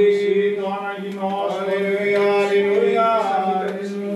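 Male voices singing Byzantine chant: a steady drone (ison) held beneath a slow melody line that bends and moves above it.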